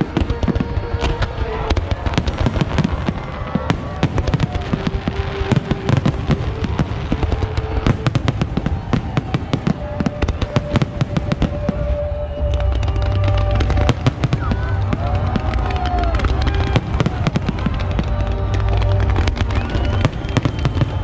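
Fireworks display: rapid cracks and bangs of shells bursting, many a second, with music playing underneath. About halfway through, the low booms grow heavier and denser.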